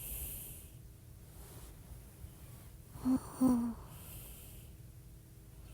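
A woman breathing close to a phone microphone. There is a breath at the start and another about four seconds in. Just before the second breath come two short, soft murmured sounds.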